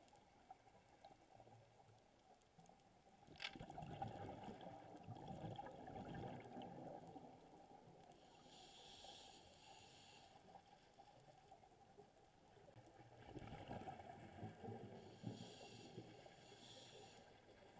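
A scuba diver breathing through a regulator underwater: twice, a few seconds of exhaled bubbles rushing and gurgling, each followed by a shorter hiss of inhaling, about ten seconds apart.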